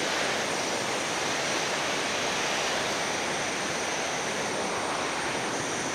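Seven Wells waterfall: a steady, even rush of falling water.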